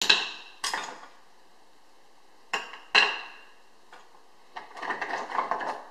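Oyster shells knocking against a glass bowl and against each other: four sharp clinks, each with a short ring, then a quick rattling clatter of shells near the end.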